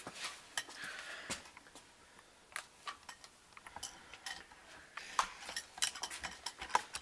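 Irregular light clicks, taps and scratchy scrapes of things being handled close to the microphone, bunched more densely in the second half.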